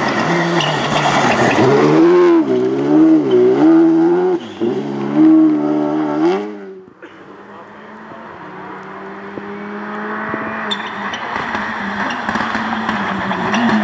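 Škoda Fabia Rally2 rally cars' turbocharged four-cylinder engines at stage pace. In the first half one car revs hard up and down through gear changes while sliding through a gravel corner. After a sudden cut, a second car is heard approaching with its engine note growing steadily louder.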